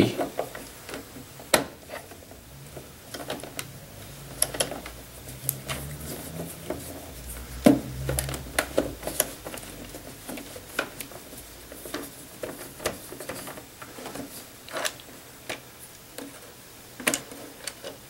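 Irregular light clicks and ticks of an oval head key, turned by a hand hex driver, working an oval head screw out of the plastic rear panel of a Jura ENA espresso machine. A faint low hum runs for a few seconds in the middle.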